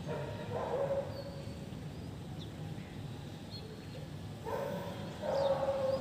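A dog barking and whining in two bouts, one near the start and a longer one near the end, with faint bird chirps between them.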